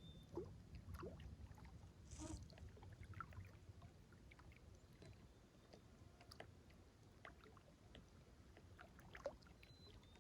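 Near silence: faint outdoor background with scattered small ticks and rustles, and one brief soft hiss about two seconds in.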